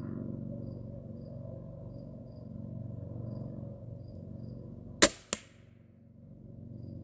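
Centerpoint Heat 425 crossbow firing a bolt: one sharp, loud crack of the string at release about five seconds in, then a second, fainter crack about a third of a second later, the bolt hitting the target 30 yards downrange.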